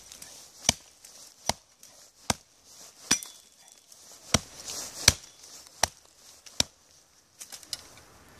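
Wood being chopped with steady, evenly paced blows into an old tree root, nine strikes a little under a second apart. A few lighter knocks follow near the end.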